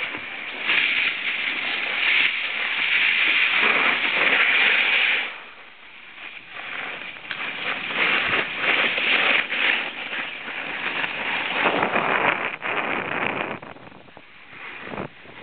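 Skis hissing and scraping over snow in two long runs: the first lasts about five seconds, then after a quieter gap it picks up again for about six seconds before dying down near the end.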